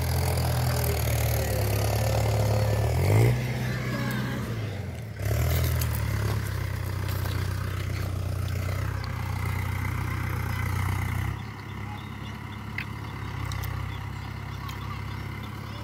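Mahindra Arjun 555 DI tractor's diesel engine running steadily as it pulls a cultivator through the field. Its pitch dips and comes back up around four to five seconds in, and it gets quieter after about eleven seconds.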